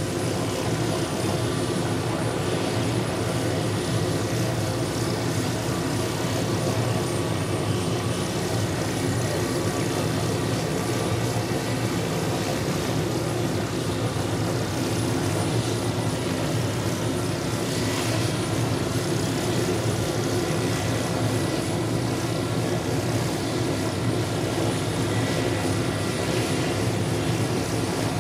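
Hughes OH-6 Loach helicopter running on the ground with its rotors turning: a steady turbine whine over the rotor and engine noise, holding an even pitch and level throughout.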